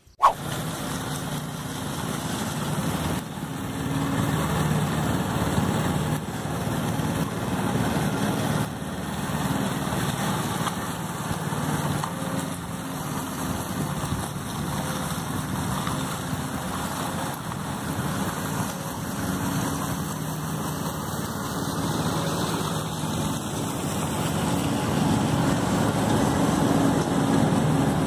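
Walk-behind concrete power trowel with a small petrol engine running steadily as its rotating blades smooth fresh concrete, a continuous engine hum.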